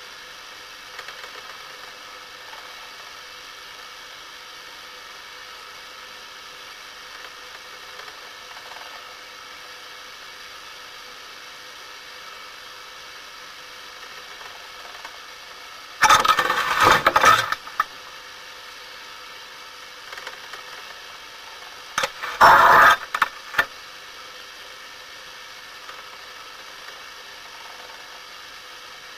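Steady underwater hiss with a faint hum, broken twice by loud rushing bursts about six seconds apart, each lasting a second or so.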